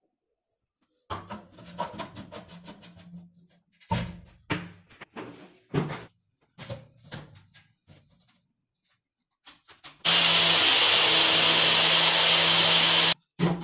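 Clicks, rattles and knocks as the blade cap is fitted onto a Cookwell bullet-style blender cup and the cup is seated on the motor base. Then the blender motor runs with a loud steady whir for about three seconds, stops suddenly, and starts again briefly near the end.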